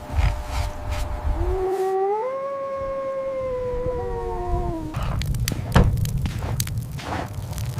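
A dog howling once: one long howl that rises in pitch and then slowly sinks. Before it there is a low rumble, and after it a rumbling noise with sharp clicks.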